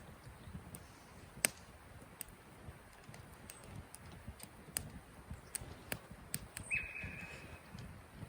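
Sparse, irregular sharp clicks and crackles over a low rumble, with one steady high call lasting about a second near the end.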